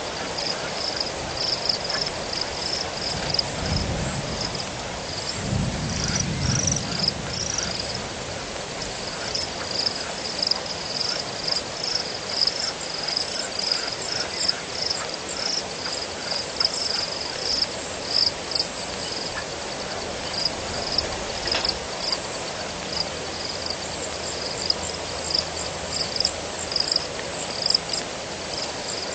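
Chorus of frogs and insects calling: a dense, continuous run of quick high-pitched pulses over a steady hiss, with two short low rumbles in the first seven seconds.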